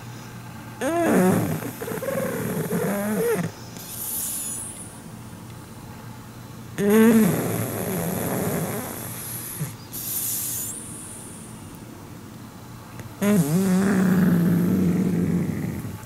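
A sleeping pug snoring: three long, rasping snores a few seconds apart, each with a wavering, whistling pitch, and shorter, softer breaths out between them.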